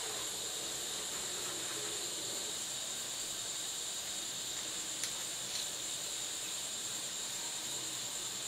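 Steady high-pitched hiss of background noise, even in level, with a faint click about five seconds in.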